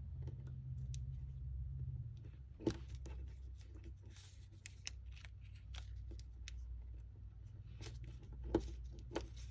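Origami paper being folded and creased by hand on a tabletop: faint rustling with scattered crisp crackles, the sharpest about a third of the way in and twice near the end. A steady low hum runs underneath.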